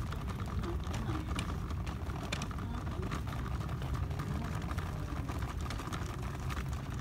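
Steady low rumbling noise with scattered faint clicks.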